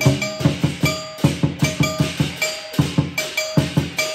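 Teochew lion dance percussion: a big drum beaten in quick, uneven strokes, with cymbals and a gong ringing on after the beats.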